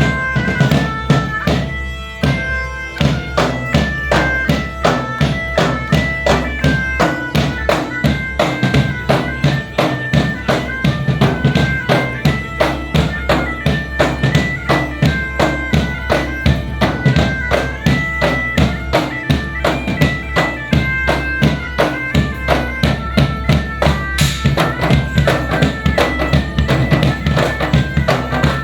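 Upbeat music playing, with a steady beat and a high melody line that steps from note to note over a sustained low layer; near the end a brighter high layer joins.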